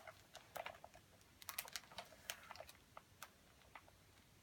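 Faint, irregular clicks and crinkles of plastic sleeve pages in a trading-card binder being handled and turned, with a brief cluster of clicks in the middle.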